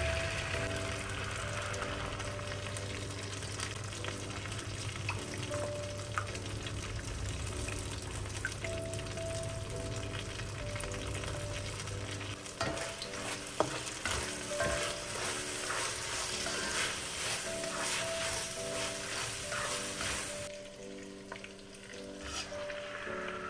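Pad see ew sizzling as it is stir-fried in a pan, with spatula strokes clicking and scraping against the pan, busier in the second half, over soft background music. The sizzle dies down near the end.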